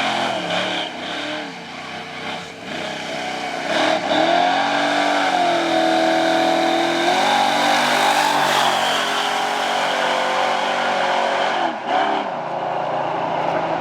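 A 1973 short-bed pickup truck's engine revving hard during a burnout, pitch climbing about four seconds in and held high for several seconds, with the rear tires spinning. The revs dip briefly near the end.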